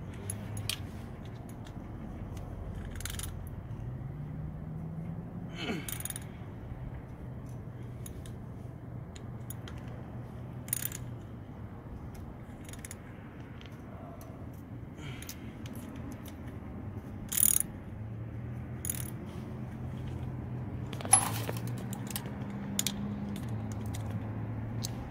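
Scattered sharp metallic clinks and clicks of hand tools and parts being handled during work on a truck's front wheel hub, over a steady low hum in the background.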